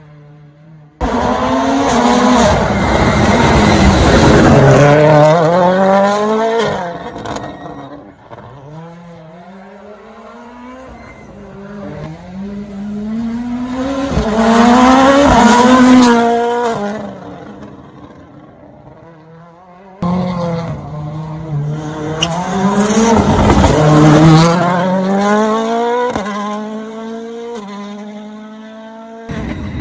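Toyota Yaris WRC rally car's turbocharged 1.6-litre four-cylinder engine at full throttle as it passes, revving up and shifting up through the gears on each run. The sound cuts off abruptly about a second in and again about twenty seconds in, between separate passes.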